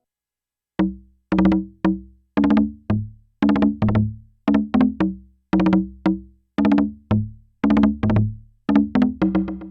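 Sequential Prophet-6 analog synthesizer playing a sequenced FM 'Bamboo' patch, with oscillator 2 frequency-modulating the sound through Poly Mod. It gives short, woody, percussive notes that die away quickly, starting about a second in and coming closer together near the end. The sound is completely dry, with no effects.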